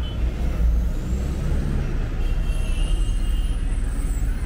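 Steady low rumble of road traffic, with a heavy vehicle's engine running close by.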